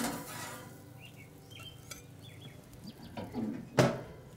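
Grilling utensils clinking and scraping against the grill and plate as the grilled yellowfin tuna steak is handled, with a light sizzle that starts suddenly and fades. A sharp knock near the end is the loudest sound.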